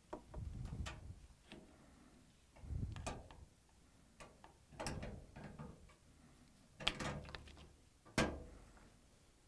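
Clinks and knocks of a washer's metal suspension springs and tub being handled as the springs are unhooked from the tub and hung on the cabinet, in about five separate bursts, the loudest two near the end.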